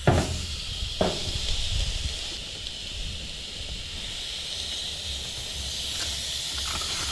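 A whole palometa set down on a hot propane grill grate, with two knocks in the first second as it goes on, then sizzling steadily, the sizzle growing a little stronger a few seconds in.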